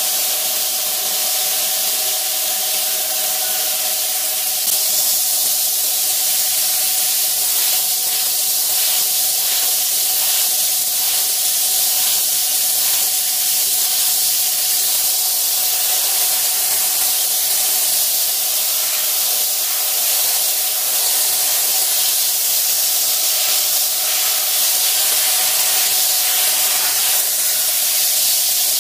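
Handheld rotary engraving tool running at a steady high speed, its motor giving a constant whine while the bit grinds into the glass surface with a continuous hiss.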